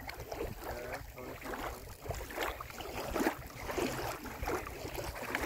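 Low wind rumble on the microphone with faint, indistinct voices talking at the bank, and a few scattered knocks.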